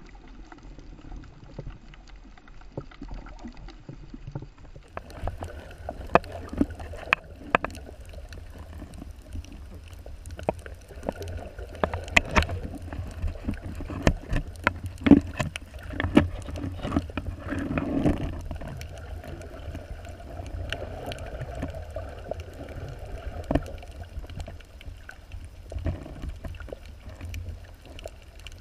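Muffled underwater sound picked up by a camera in a waterproof housing just below the surface: a steady low rumble of water with many irregular sharp clicks and knocks, and a louder swash of moving water about two-thirds of the way through. The low rumble sets in about five seconds in.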